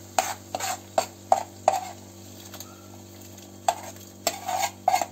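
A metal spoon scraping and clinking against a metal pan as a thick paste sauce is scraped out into a soup pot. There are two runs of short scrapes, with a pause of about two seconds between them.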